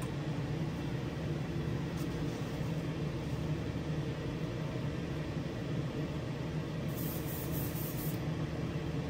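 Spray booth exhaust fan running steadily, a low, even drone of motor and moving air.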